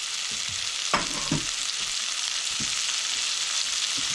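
Diced onions sizzling in hot bacon grease in a frying pan, a steady high hiss, with a few knocks of a wooden spoon against the pan as they are stirred, the loudest about a second in.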